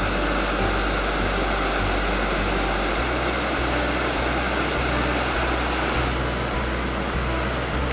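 Steady rush of river rapids, loud and even, with the low bass notes of background music underneath.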